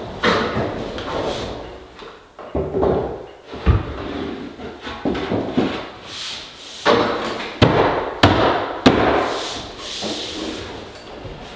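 A maple board being handled and pushed up into a ceiling box beam: wood scraping and rubbing, with a heavy knock a little after three seconds in and three sharp knocks in quick succession around eight seconds in.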